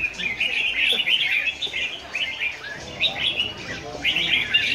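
Several caged red-whiskered bulbuls singing together: short, bright, warbling phrases that overlap almost without a break, with a brief lull about two seconds in.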